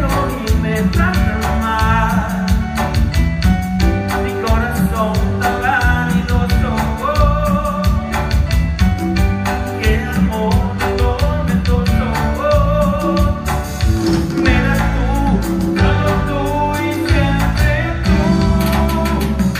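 Cumbia music playing: a singing voice over a steady, driving beat.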